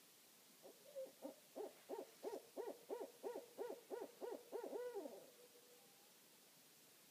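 An owl calling: a quick run of about a dozen short hooting notes, roughly three a second, ending in a longer note that slides down in pitch.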